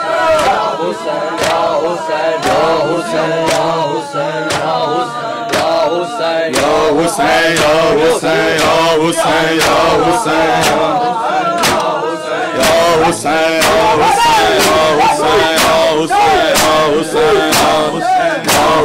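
A group of men chanting a noha in unison over a steady beat of hands slapping bare chests (matam). The chanting and beating get louder about six and a half seconds in.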